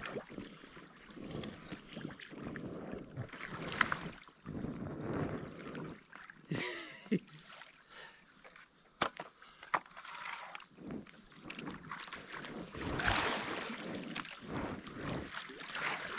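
Irregular water splashing and sloshing around an inflatable air mattress as a person belly-crawls off it into the water, with a few sharp knocks.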